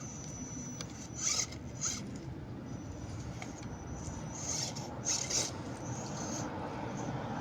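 RC rock buggy with a Holmes Hobbies Stubby Puller Pro brushless motor crawling over rough ground: a steady drivetrain hum with a thin high motor whine that comes and goes, and four short scraping bursts about a second in, at two seconds, and twice around four and a half to five and a half seconds, likely tires and chassis scraping on rock.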